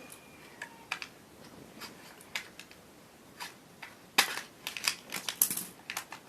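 Crinkly plastic wrapping of a toy egg and its chocolate being handled and opened: a few scattered clicks, then a busy run of sharp crinkles and snips from about four seconds in.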